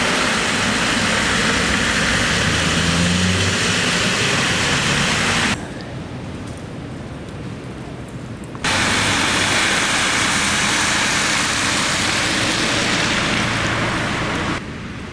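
Traffic on snowy roads: a steady rush of tyres and engines with a low hum. It cuts abruptly to quieter ambience about five and a half seconds in, returns about three seconds later, and drops again near the end.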